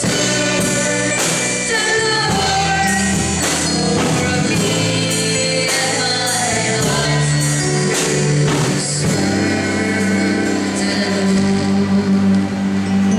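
A man singing a worship song into a handheld microphone over a live band with drums and cymbals, in a large hall.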